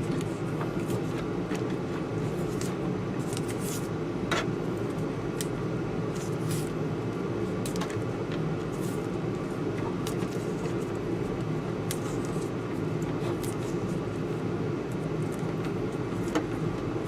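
Steady mechanical hum, with scattered faint clicks and crackles of electrical tape being unrolled and wrapped around a bundle of wires.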